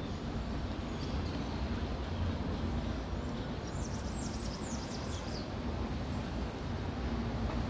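City street ambience: a steady low rumble of traffic, with a bird giving a quick run of about ten high chirps near the middle.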